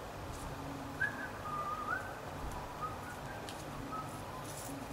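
A few faint whistled notes, some sliding up or down in pitch, over a low steady background hum.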